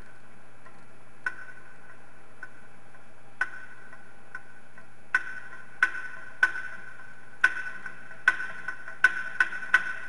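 Sharp ticks, each with a short ringing note at the same pitch. They come few and far apart at first, then faster, about two a second near the end, over a faint steady hum.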